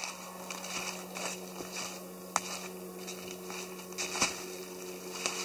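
Footsteps crunching and rustling through dry fallen leaves, irregular, with a couple of sharper snaps, over a steady low hum.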